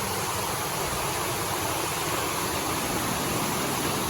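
Waterfall and whitewater rushing in a steady, unbroken roar of water.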